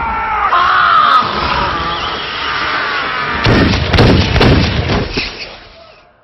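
A man's loud bellowing yell, then a rapid volley of handgun shots over the film's score. The shots come about four a second, starting near the middle and dying out before the end.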